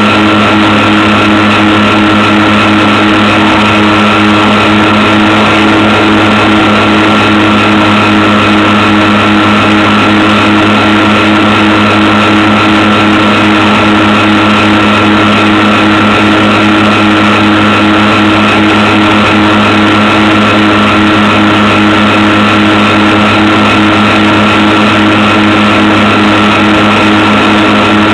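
Twin electric motors and propellers of a homemade RC plane droning steadily at a constant pitch and level.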